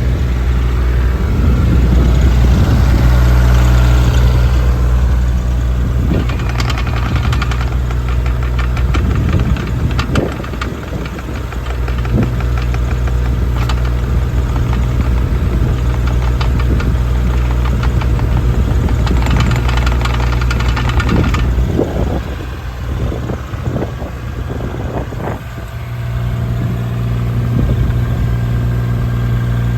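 Diesel engine of a JCB 8018 mini excavator running steadily. It has two stretches of higher-pitched hiss and a scattering of knocks and clanks, most of them in the second half.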